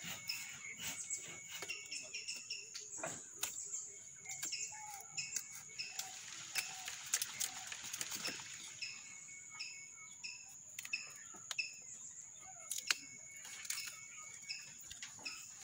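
Machete-style knife scraping and knocking on a kithul palm's flower stalk as its sheaths are pared away, in many sharp clicks, with a few seconds of rough rubbing around the middle. Birds chirp repeatedly and an insect keeps up a steady high drone.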